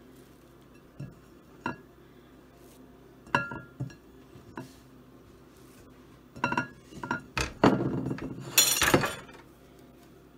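Hands crumbling and patting oat crumb topping into a baking pan: scattered light knocks and clinks against the pan, coming closer together about two-thirds through and ending in a short flurry of rapid knocks and scraping.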